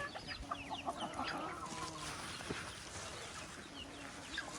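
Hens clucking and chirping while they eat scraps. Many short calls come close together in the first two seconds, then fewer.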